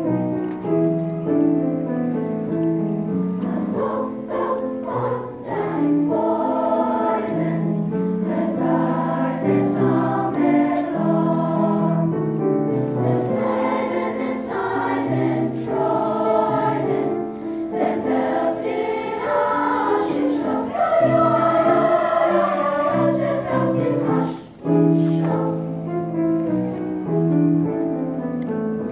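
Sixth-grade children's choir singing a song together in held, stepwise notes, with a brief breath-like drop in loudness about 24 seconds in.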